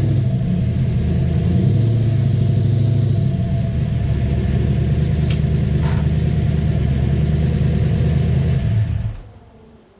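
Go-kart engine idling steadily, then switched off about nine seconds in, the sound stopping abruptly.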